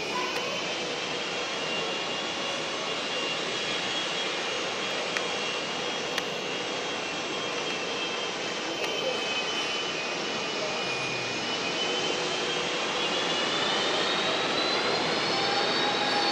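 Boeing 757 freighter's twin jet engines at taxi power: a steady rush with a high whine. The whine rises in pitch and the sound grows louder over the last few seconds.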